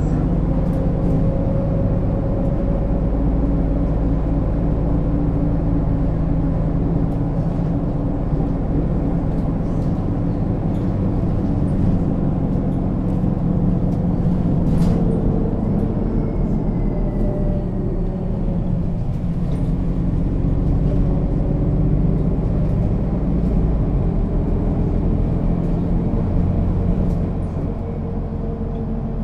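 Mercedes-Benz O 530 G Citaro articulated bus running, its diesel engine and Voith automatic gearbox giving a steady engine note that drifts up and down in pitch. The level drops noticeably near the end as the engine eases off.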